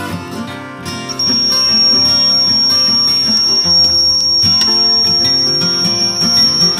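Digital multimeter's continuity buzzer giving a steady high-pitched beep from about a second in, over acoustic guitar background music. The beep signals continuity: the meter reads near zero resistance.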